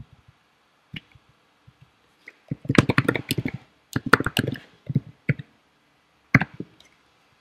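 Typing on a computer keyboard: a quick run of key clicks from about two and a half seconds in, lasting about three seconds, with a few single keystrokes before and after.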